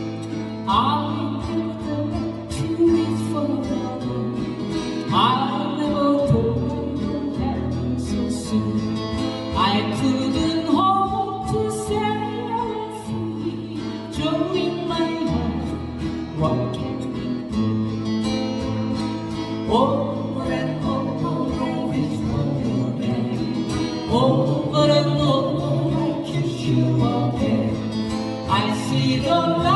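Live acoustic folk-pop band: several acoustic guitars strumming chords through a PA, with voices singing the melody over them.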